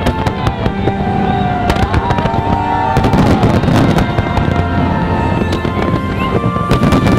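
Fireworks display going off in a dense run of sharp bangs and crackles, thickest about three seconds in and again near the end, with music playing underneath.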